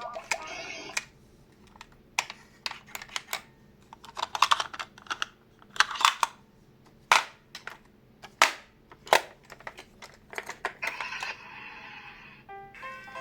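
Toy ambulance minicar being handled: a string of sharp plastic clicks and knocks. Its electronic siren cuts off about a second in, and a stepped electronic tone sequence starts near the end.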